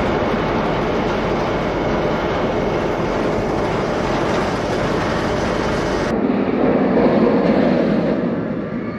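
Dragon Khan's steel looping coaster train running along its track as a steady, loud rushing noise. The sound changes about six seconds in.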